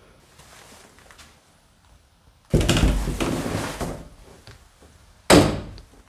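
A door banging twice: a loud thud with a rattling tail about two and a half seconds in, and a second, sharper bang near the end.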